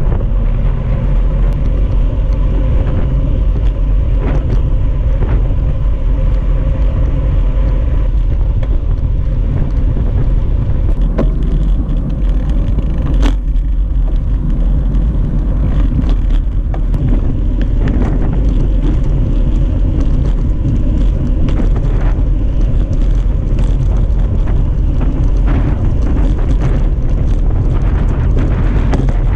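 Wind buffeting the microphone of a handlebar-mounted camera on a moving road bike, with tyre and road noise. It makes a loud, steady low rumble, broken by scattered small clicks and rattles.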